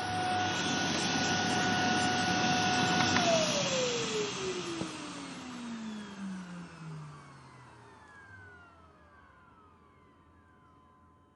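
Vacuum cleaner running with a steady whine, switched off about three seconds in. The motor's pitch then falls steadily as it spins down and fades away.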